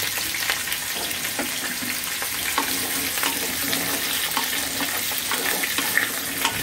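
Potato, papaya and carrot chunks sizzling in hot oil in a kadai, with a wooden spatula scraping and knocking against the pan in scattered short clicks as the vegetables are stirred.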